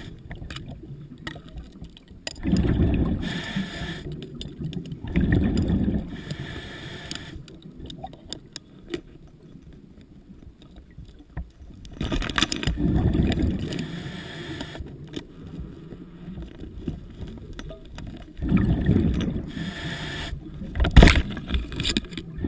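Scuba diver breathing underwater, each exhale a rush of bubbles from the regulator, several seconds apart. A single sharp knock sounds near the end.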